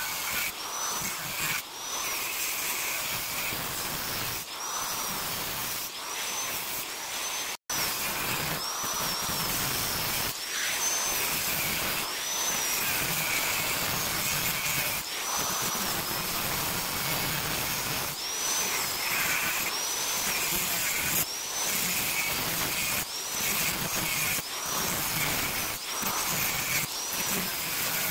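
Electric angle grinder with a cutting disc slicing into the metal fins of a scrap radiator, running steadily with a harsh grinding hiss. Its high whine rises and falls again and again as the disc bites into the metal and is eased off.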